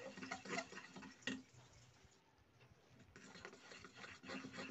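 Spoon beating thick flour batter in a steel bowl: faint wet slaps and clicks of the spoon against the bowl, stopping for about a second and a half midway, then starting again.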